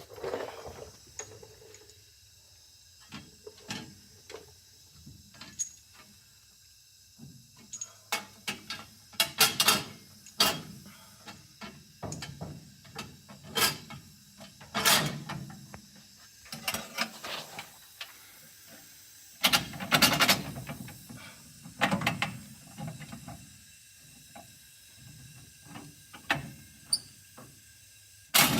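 Hand tools and metal hardware clinking and clicking in irregular knocks, with ratchet-like clicks, as the new bolts and locking nuts of a front disc brake kit are fitted.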